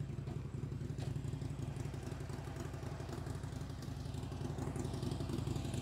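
Harley-Davidson Iron 883 Sportster's air-cooled V-twin idling steadily, left running to warm its fresh oil after an oil change.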